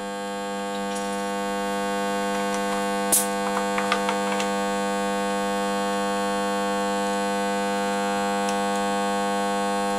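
Steady electrical mains hum, a buzz of many even tones that slowly grows a little louder. About three seconds in comes one sharp click, then a few faint taps as the compression tester's hose is threaded into a spark-plug well.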